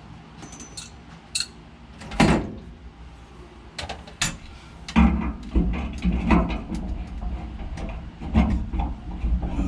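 Irregular clunks, clicks and knocks of tools and parts being handled during hands-on work. The loudest knock comes about two seconds in, and a series of heavier knocks runs from about five seconds on.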